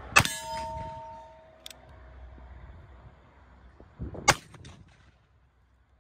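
Two shots from a black-powder percussion revolver (an 1860 Army replica), about four seconds apart. A metallic ring lasting about a second follows the first shot, a steel target being struck.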